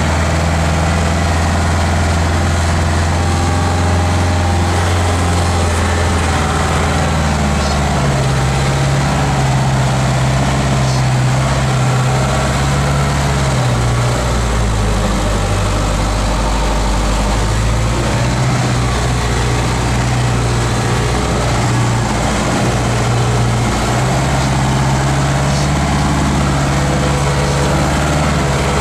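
Unimog's diesel engine heard from inside the cab, running at low revs with a steady, loud drone that shifts up and down in pitch several times.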